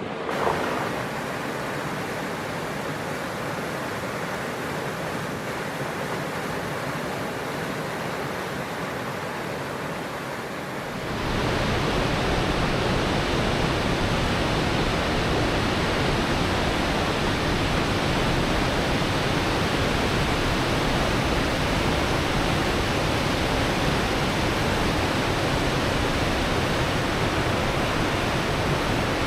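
Waterfall: a steady rush of falling water that grows louder and fuller about eleven seconds in.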